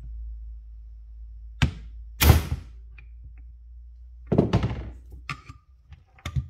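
Three hammer blows on a hand-held manual impact driver, striking a screw in a marine carburetor body to break it loose. The second blow is the loudest and rings briefly.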